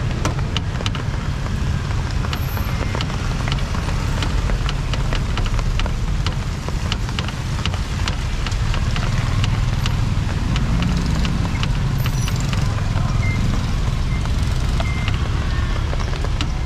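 Street traffic: a steady low engine rumble with scattered sharp clicks and ticks over it.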